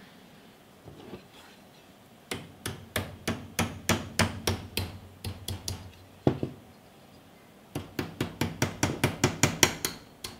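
Light hammer taps on a thin steel pin punch, metal on metal, driving at a small rusty pin held in a vise. About ten taps come in a steady run, then a single tap, then a quicker run of taps near the end.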